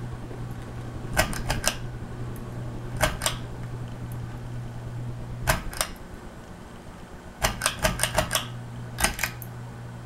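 Tatung Hugger ceiling fan motor humming steadily. Five short runs of sharp, rapid clicks cut across the hum; the longest, about seven clicks, comes past the middle.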